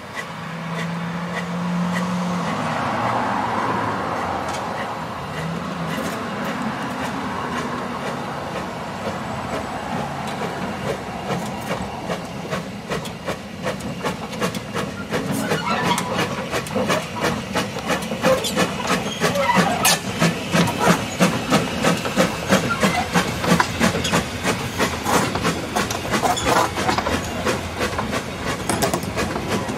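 Narrow-gauge steam tank locomotive pulling away with a passenger train. It starts with a hiss of steam from its open cylinder drain cocks, then settles into a steady beat of exhaust chuffs that grows louder as it comes close, with wheels clattering on the rail joints.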